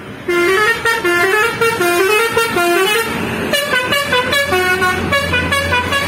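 Multi-tone telolet musical bus horn of the Basuri type playing a quick jingle of stepped notes, in two phrases with a short break about halfway.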